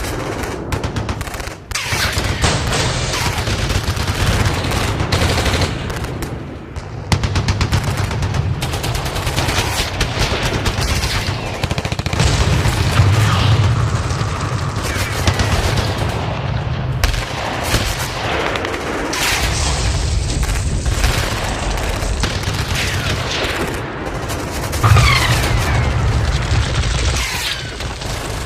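Battle sound effect: dense, continuous gunfire with rapid machine-gun fire and single shots over a heavy low rumble.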